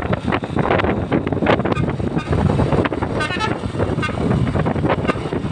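Telolet musical horn, a Maro three-trumpet, 17-tone horn, playing a short run of changing notes about three seconds in, with a shorter note near the end, over a loud noisy background.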